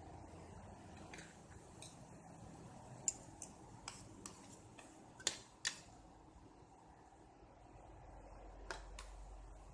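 About eight light clinks and taps of kitchen utensils against dishes, coming irregularly, with the loudest two close together about five seconds in.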